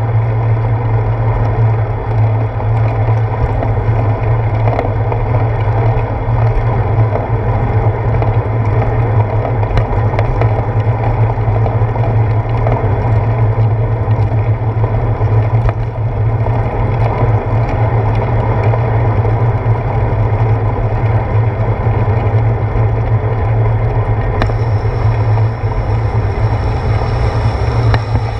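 Steady wind and road noise of a bicycle riding on wet pavement, picked up by a handlebar-mounted GoPro, with a strong low hum. A thin higher hiss comes in near the end.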